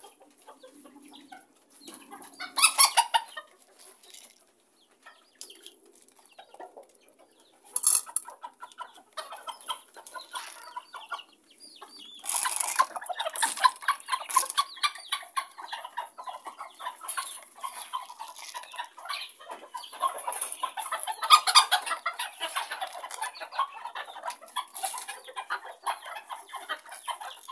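A flock of hens clucking: scattered calls at first, then a near-continuous clucking chorus from about halfway through, with a few louder calls standing out.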